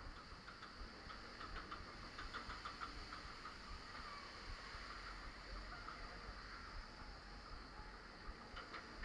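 Roller coaster train running on its track: a steady low rumble with clusters of fast mechanical clicking, once about a second in and again near the end.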